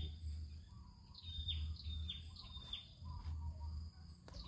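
A bird calling in runs of short high notes, each sliding quickly down in pitch, two or three a second, over a low intermittent rumble; a single sharp click near the end.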